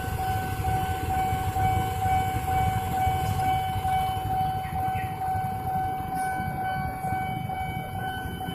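Railway level-crossing warning signal sounding a steady electronic ringing tone that pulses about twice a second, over the low rumble of idling motorcycles and traffic.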